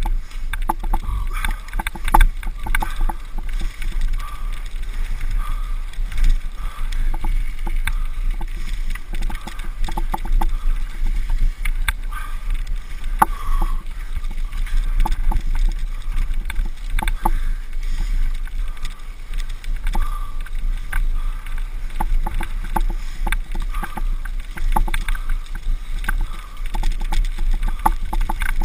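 Wind buffeting an action camera's microphone during a bicycle ride along a rough dirt track, with frequent rattles and knocks as the bike goes over the bumps.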